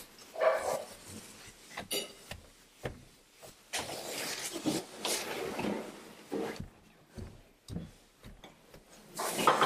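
Quiet room with a seated audience: scattered rustling, shuffling and small knocks, with a short louder sound about half a second in and more movement noise near the end.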